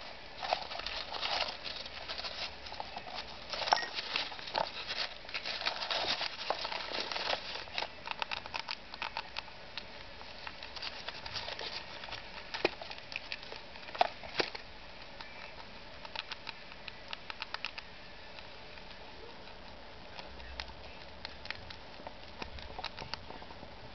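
A pet rat rummaging in a cardboard-tube food puzzle stuffed with crumpled paper, pulling the paper out: papery rustling and crinkling with many small clicks and scratches. Busy in the first half, thinning to scattered small clicks later on.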